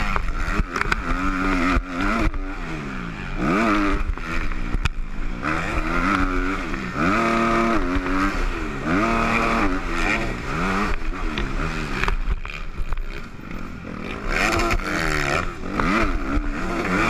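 250cc motocross bike engine revving hard from the rider's helmet, its pitch climbing and dropping back again and again as the throttle is worked through corners and straights. Wind buffets the microphone, with a few sharp knocks from the bike over the dirt.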